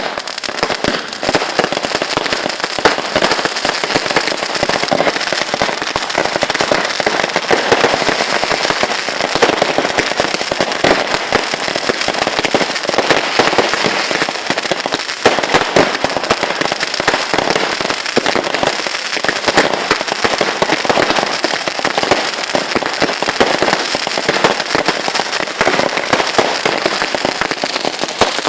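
Fireworks going off in a rapid, unbroken barrage of crackling bangs.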